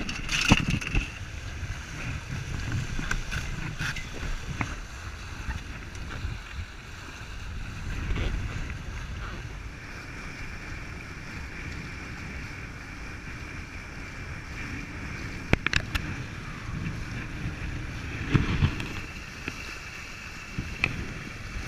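Water rushing and hissing past a Prindle 18.2 catamaran's hull under sail, with wind buffeting the microphone. A few sharp knocks stand out, most clearly about two-thirds of the way through.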